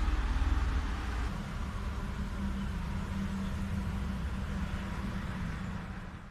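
Steady outdoor background noise: a low rumble with a hiss over it and a low hum coming in about a second in, fading out at the end.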